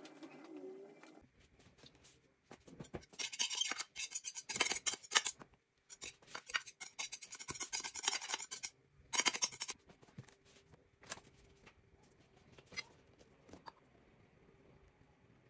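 A knife scraping and rubbing across the bottom of a glass baking dish as butter is spread over it, in quick repeated strokes. After several seconds it dies down to a few light scrapes and taps.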